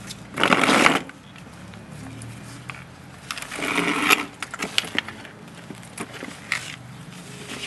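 A toddler's plastic jelly sandals scuffing and stepping on patio tiles: two longer scrapes, about half a second in and again around the middle, then a scatter of light clicks.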